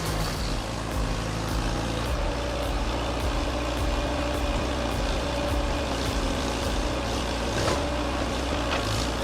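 A heavy machine's engine running steadily, with a low rumble, a steady hum and scattered light clicks.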